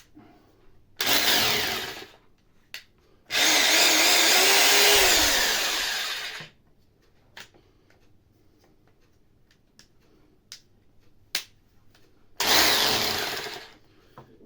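Corded hammer drill (a knockoff DeWalt-branded rotary hammer) run in three trigger bursts: a short one about a second in, a longer one of about three seconds that winds down, and another near the end. It runs again on test after its burnt power cable was cut back and reconnected.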